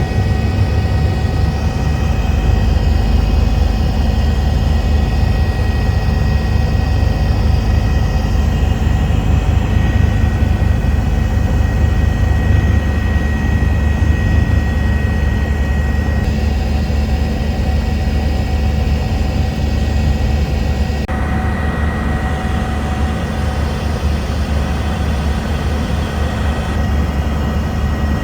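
Eurocopter EC145 helicopter in flight: a steady, loud low drone from the rotors and engines, with a constant high whine over it. The higher part of the sound shifts abruptly a few times.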